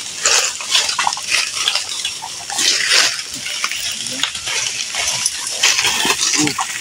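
Dry wooden slats and bamboo strips crackling, snapping and clattering as figures climb over a heap of scrap wood, with a few short grunts mixed in.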